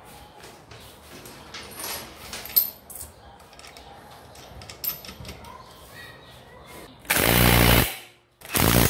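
Cordless impact wrench hammering in two bursts near the end, about a second and then half a second, running down the nut on the scooter's CVT variator (front drive pulley) during reassembly. Before that, a few light clicks of metal parts and tools being handled.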